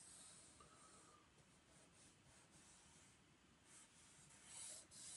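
Black marker pen drawing on sketchbook paper: faint scratchy strokes, a few a little louder near the end.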